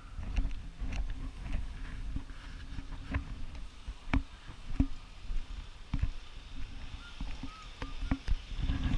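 Wind buffeting the microphone in a low, uneven rumble, with a few sharp clicks scattered through.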